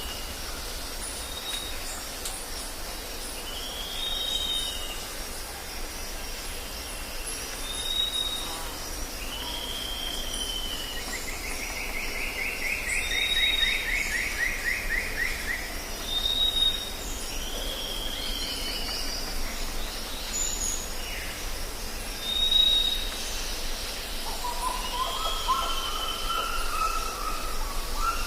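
Tropical forest ambience: several birds calling over a steady high insect chorus. One bird repeats an arching whistled note every few seconds, another gives short high pips, and a long falling buzzy trill sounds about twelve seconds in, under a constant low rumble.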